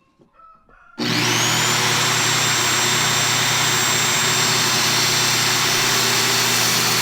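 A motor-driven machine switches on about a second in. Its whine rises quickly as it spins up, then it runs steadily and loudly with no change in load.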